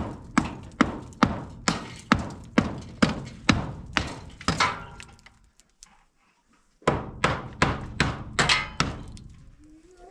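Hand hammer striking steadily, about two blows a second, fixing a wrought-iron window grille frame into a cinder-block wall opening. The blows stop for about a second and a half midway, then resume.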